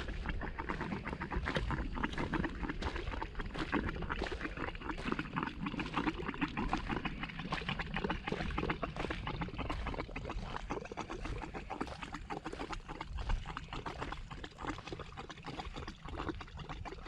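Geothermal mud pot (mud volcano) bubbling and gurgling: gas escaping up through the mud in a fast, irregular run of pops and glugs.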